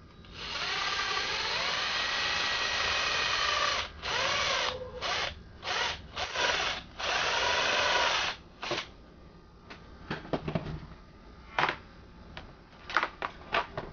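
Cordless drill boring through a scooter's plastic under-cover panel: one steady run of about three and a half seconds, then several short bursts on the trigger. A few light clicks and taps follow near the end.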